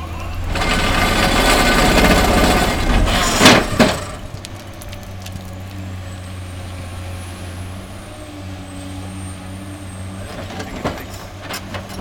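Caterpillar excavator's rock-breaking attachment working against a calcified rock layer: a loud rattling grind with two sharp cracks about three and a half seconds in. After that the excavator's diesel engine runs on more quietly with a steady hum, and a couple of knocks come near the end.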